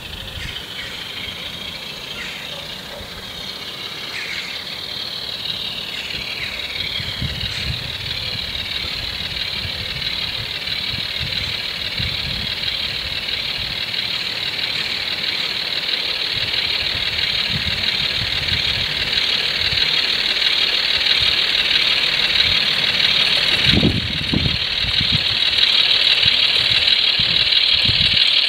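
Model diesel locomotive's DCC sound decoder playing diesel engine sound through its small on-board speaker, thin and high with little bass. It grows steadily louder as the locomotive hauls its freight train closer.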